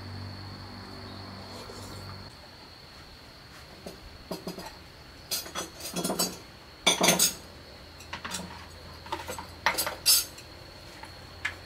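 Tableware being handled on a wooden table: bowls set down and utensils clinking against them in a string of sharp clinks and knocks, loudest about seven and ten seconds in. A steady high insect drone runs underneath.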